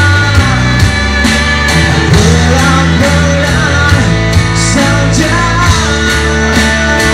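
Live band playing a pop-rock song: a man singing over electric guitar and a steady drum beat.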